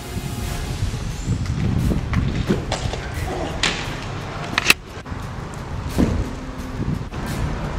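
Low outdoor rumble on the camera microphone with a few sharp knocks and thumps, the sharpest about four and a half seconds in and another about six seconds in.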